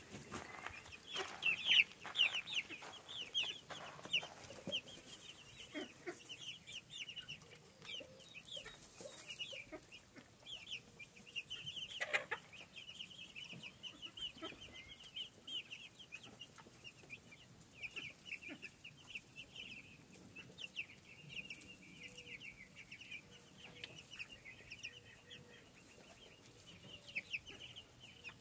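A flock of young Cornish Cross meat chicks peeping continuously, many short high cheeps overlapping one another.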